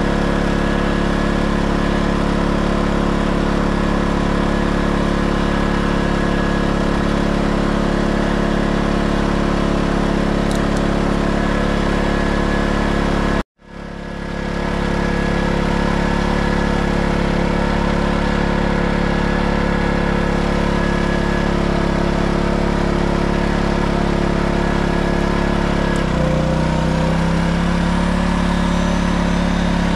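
Erayak 4500PD inverter generator's small engine running steadily on its first start. The sound drops out for an instant about halfway through and fades back in. Near the end the engine steps up to a higher steady pitch as it takes on a load, a heat gun plugged into it.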